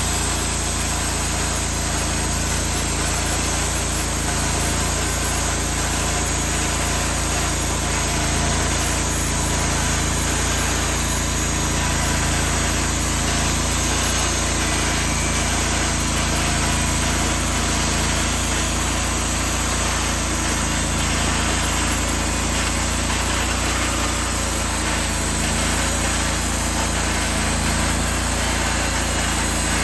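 Portable bandsaw sawmill's engine running steadily at a constant pitch and level.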